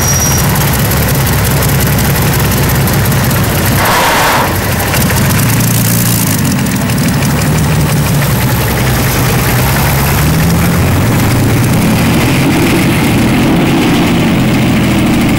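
Modified pulling tractor's engine running at low revs, its pitch shifting and rising a little in the second half. A brief hiss comes about four seconds in.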